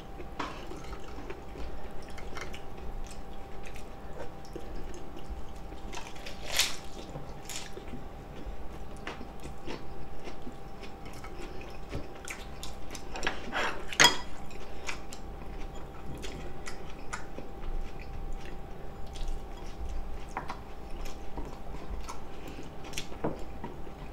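Close-miked eating sounds: chewing and wet mouth clicks, with a couple of louder sharp clicks about six and fourteen seconds in.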